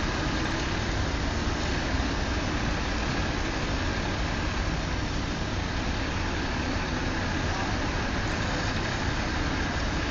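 Steady vehicle noise: engines running and a car passing on the road, a constant rumble without breaks.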